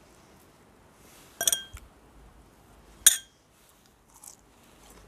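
Metal fork clinking twice against a glass, about a second and a half apart, the glass ringing briefly after each strike.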